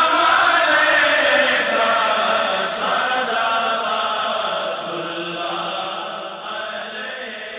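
Voices chanting the closing of an Urdu salam, a devotional song to the Prophet, as long sustained notes without clear words, fading out steadily toward the end.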